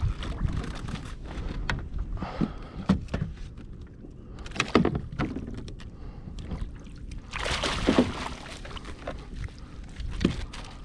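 Water splashing and sloshing beside a kayak as a landing net is dipped in and a fluke scooped out, in two louder bursts about halfway through and again a few seconds later. Scattered sharp knocks of gear against the kayak come through between the splashes.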